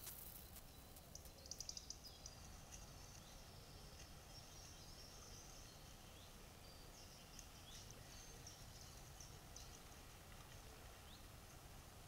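Faint distant birdsong, scattered high chirps and short trills with a quick run of them about a second and a half in, over the steady hiss of a trail camera's microphone.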